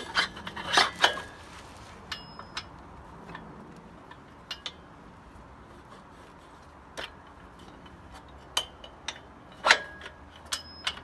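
Scattered metallic clinks and taps, some ringing briefly, as motorcycle rear-wheel hardware (spacers, axle, tools) is handled. A tight cluster comes in the first second or so, then single clinks every second or two.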